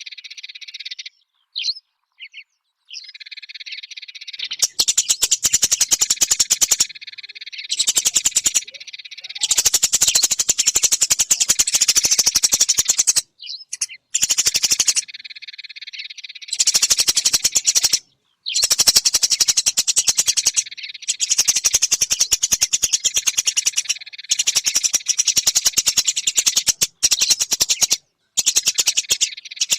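Eurasian tree sparrows chattering: loud runs of very rapid, repeated chirps broken by short pauses.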